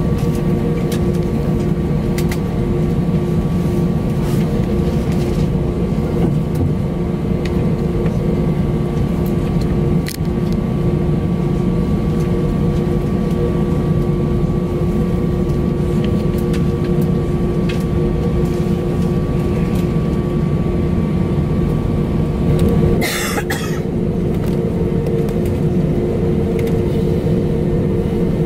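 Airbus A321 cabin noise on the ground before takeoff: the jet engines running at idle with a steady hum and a couple of steady tones over a low rumble. Near the end there is a brief rustle or bump, and a higher whine stops.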